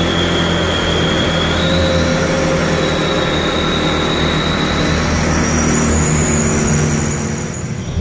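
Engine of a heavily loaded diesel light truck running under load as it creeps along a narrow winding road, with a steady high whine above it. The sound drops in level near the end.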